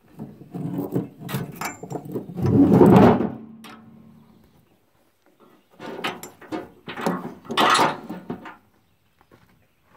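Knocks and clatter of rubber hoses and their metal fittings being handled on a trailer's deck, in two bouts of a few seconds each, with a louder thump a few seconds in and another near the end.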